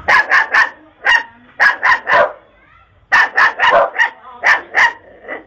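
A dog barking loudly in quick runs of short barks: three in a row, a single bark, three more, then a longer run of about seven.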